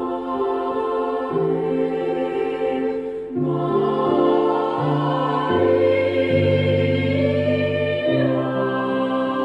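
Youth church choir singing a sacred song in slow, held chords that change every second or two over a moving bass line, with a brief break about three seconds in.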